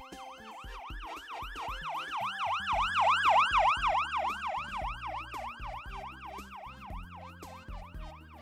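Emergency vehicle siren in a fast yelp, about four to five sweeps a second, growing louder to a peak about three seconds in and then fading away. Background music with a bass line and a beat plays underneath.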